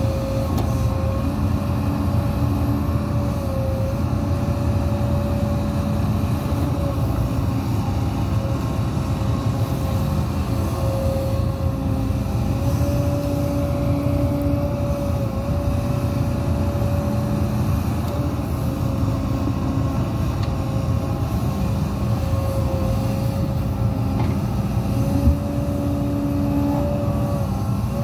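Hidromek 230LC H4 24-tonne excavator running under load while digging, a steady low engine rumble with a whine that steps up and down in pitch as the arm and bucket move. A single sharp knock near the end.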